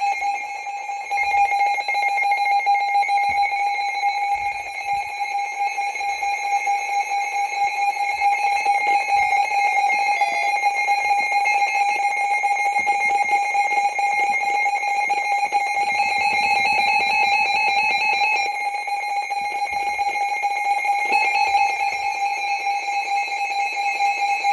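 Several weather alert radios, Midland WR120, WR300 and HH54 among them, sounding their siren tests all at once. Their overlapping alarm tones are steady, piercing and loud.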